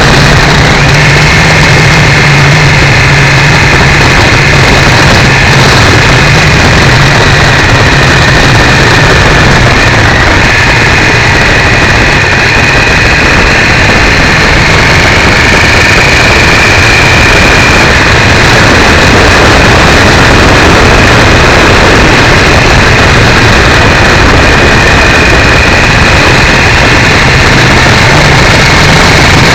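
Triumph 955i motorcycle's three-cylinder engine running steadily on the move, picked up by a cheap camera microphone mounted at the foglight, so the sound is loud and distorted with a thick rushing noise over the engine note.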